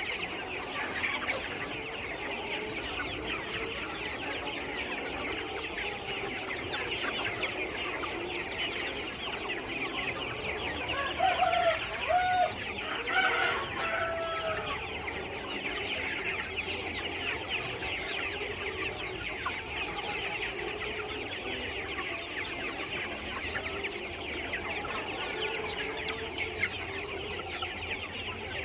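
A flock of kampung chickens clucking and calling steadily, with a louder run of calls from one bird about halfway through.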